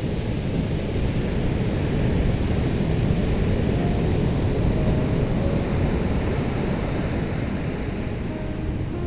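Ocean waves breaking on a beach: a continuous rushing surf that swells a little in the middle and eases toward the end.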